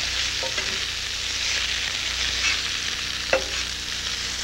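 Sliced carrots, celery and onion sizzling as they sauté in oil in a skillet while being stirred with a spatula, with two light knocks about half a second and three and a half seconds in.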